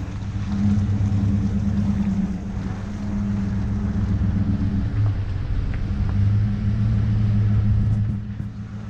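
Chevrolet pickup's engine and exhaust running with a steady low drone as the truck rolls slowly on gravel, swelling twice with light throttle and easing off near the end.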